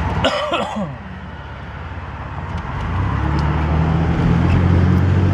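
Pickup truck engine and road noise heard from inside the cab while driving, the engine's low drone growing louder and steadier about three seconds in, as if pulling away.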